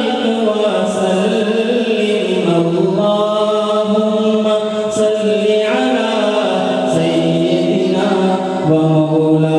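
A man singing an Urdu naat unaccompanied into a microphone, holding long drawn-out notes that step slowly up and down in pitch.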